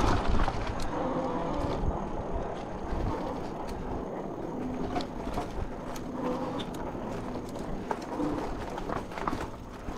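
HeyBike Mars electric bike riding along a dirt trail: tyres rolling over the rough ground with a steady low rumble and scattered clicks and rattles from the bike.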